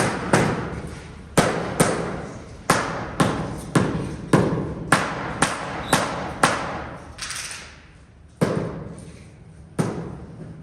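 Repeated hammer blows on a tiling job: about fifteen sharp knocks at uneven intervals, each with a short ring.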